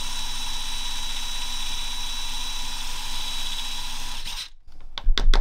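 Electric drill running steadily with a steady whine as it drills out the damaged screw of a plastic car key fob. The drill stops about four and a half seconds in, and a few sharp clicks follow just before the end.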